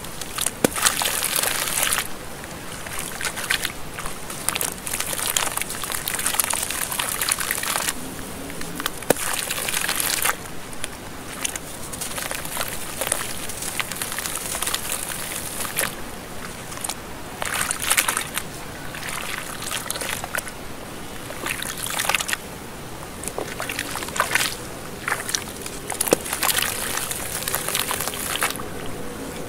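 Lumps of wet sand and cement crushed and crumbled by hand in a tub of water: water sloshing and trickling, with gritty crumbling and small clicks that come in uneven bursts.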